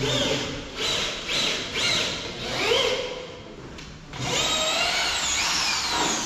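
Electric drill run in short trigger bursts, its motor whine rising and falling in pitch with each squeeze. After a short lull it makes one longer run of about two seconds near the end.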